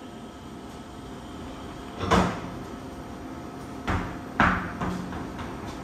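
Three sharp knocks over a steady background hum: one about two seconds in and two close together near four seconds, followed by a few lighter clicks.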